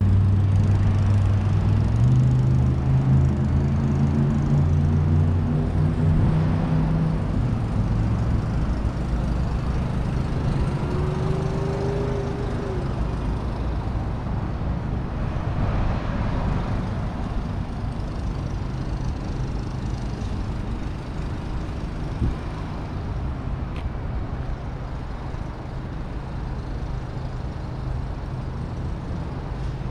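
Road traffic: a vehicle's low steady hum steps up in pitch about two seconds in and fades away over the next several seconds, leaving a steady rumble of passing traffic.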